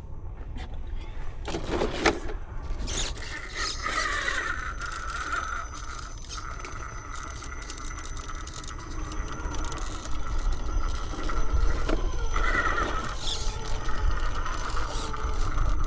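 Electric motor and geared drivetrain of a 1/10-scale RC rock crawler whining steadily, swelling louder twice as the throttle is worked.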